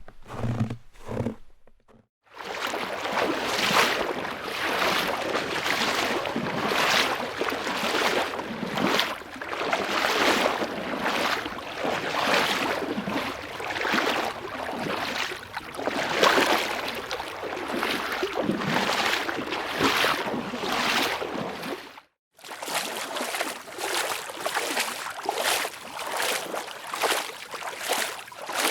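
Footstep sound effects. A few dull, heavy steps come in the first two seconds. After a brief pause there is a long run of quick, noisy steps. A short silence falls a little after twenty seconds, then another take of steps begins.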